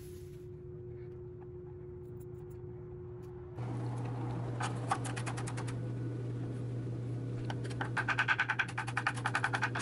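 A low hum switches on about three and a half seconds in. Over it come runs of rapid, even tapping, about nine taps a second, briefly at first and then again near the end.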